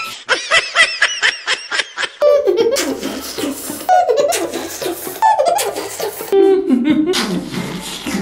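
Laughter sound effects: a quick run of high, rapid giggles, then from about two seconds in several deep laughs that each glide down in pitch.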